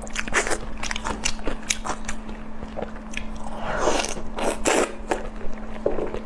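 A person biting into and chewing crunchy food: a quick run of crisp crunches, with a louder, longer crunching stretch about four seconds in, over a low steady hum.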